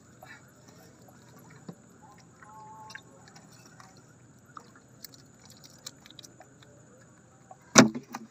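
Shallow river water sloshing and small splashes, with light rustling, as a nylon gill net is handled by hand and fish are worked out of its mesh. One sharp, loud splash comes near the end.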